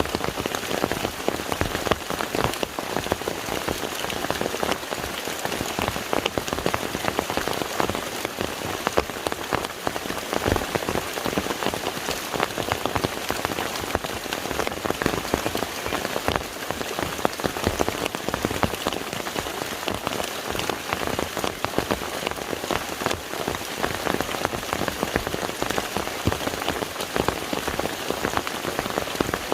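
Steady rain falling on a lake's water surface: an even wash of sound made up of many separate drop impacts, with no let-up.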